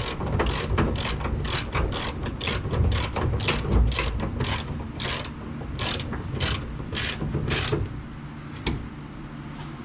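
Hand ratchet wrench clicking in quick, regular strokes, about two to three clicks a second, as a door hinge bolt is turned. The clicking stops near the end, followed by one last click.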